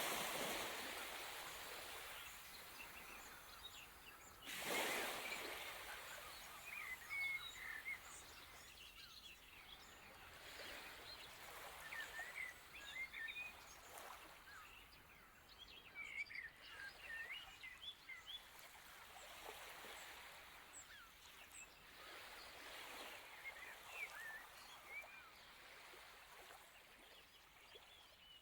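Faint birds chirping in many short calls over a soft rushing background that swells at the start and again about five seconds in.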